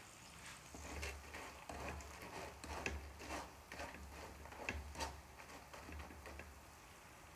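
Flattened black gram frying in hot oil inside a steel mesh strainer, stirred with a spatula: faint, irregular crackles and clicks of the chana and the spatula against the mesh, a few sharper ones about three and five seconds in.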